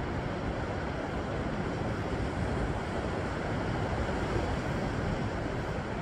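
Sea waves breaking and washing over rocks along a rocky shore, a steady, unbroken rush of surf.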